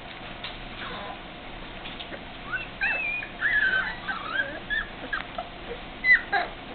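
Four-week-old springer spaniel puppies whimpering: a run of short, high-pitched whines that rise and fall, starting about two and a half seconds in, the loudest near the end.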